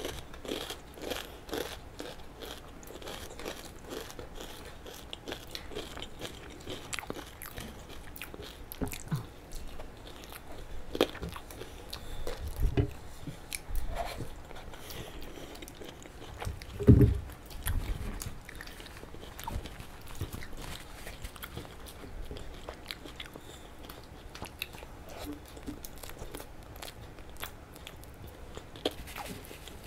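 Two people chewing mouthfuls of rice and rajma eaten by hand: close wet chewing and biting sounds with small scattered clicks. A single louder low thump comes a little past halfway.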